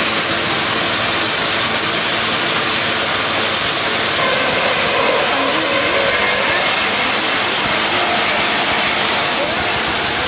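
Hydraulic drilling jumbo working at a rock tunnel face, drilling blast holes: a loud, steady, even machine noise.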